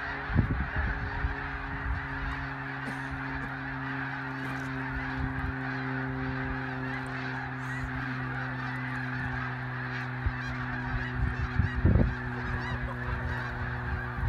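A large flock of snow geese calling in flight, a dense, unbroken din of countless overlapping honks. Under it runs a steady low hum from about a second in, with low rumbles near the start and again about twelve seconds in.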